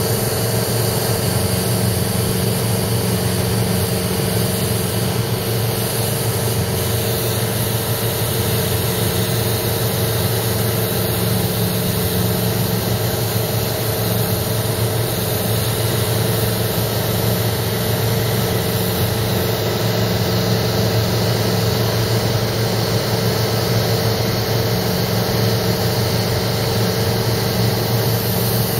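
Steady drone of a light aircraft's piston engine and propeller heard from inside the cabin in level cruise, over a constant hiss of air.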